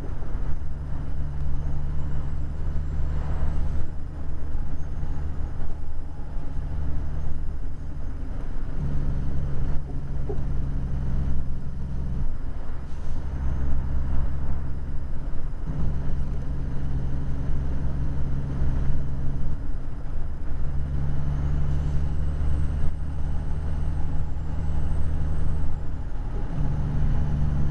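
Truck diesel engine heard from inside the cab while driving, a steady low drone whose note breaks briefly about five times and then comes back at a changed pitch.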